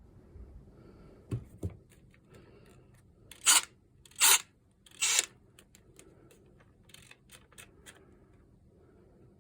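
Hands working on a cordless screwdriver on a bench: two light knocks, then three short, loud scraping strokes under a second apart, then a few soft clicks.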